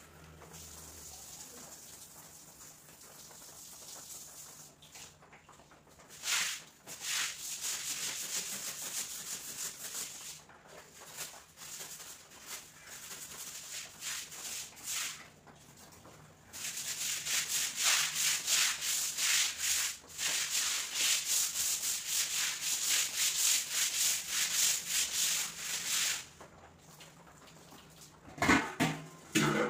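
Stiff broom scrubbing a wet concrete floor in rapid back-and-forth strokes, in two long spells. Before it, a hose sprays a faint hiss of water onto the floor. A few sharp knocks come near the end.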